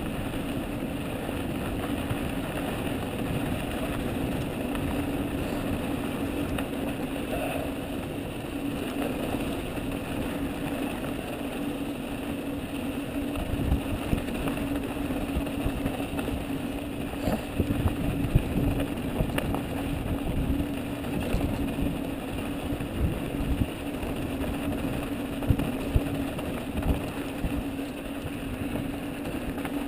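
Mountain bike rolling fast down a dry dirt and gravel trail: steady tyre and rolling noise with a constant hum. From about halfway on, the bike rattles and knocks sharply over bumps, several times.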